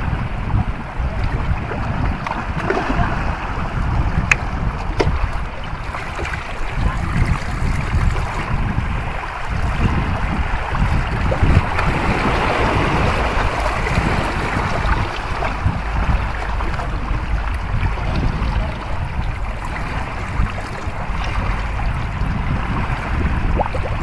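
Wind buffeting the microphone, with a low irregular rumble, over sea water washing against shore rocks; the wash swells about halfway through.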